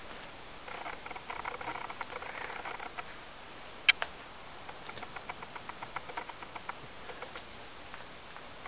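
An eagle tearing into a trout with its beak: a patter of small wet clicks and rips as flesh is pulled off, a sharp snap about four seconds in, then a run of light ticks.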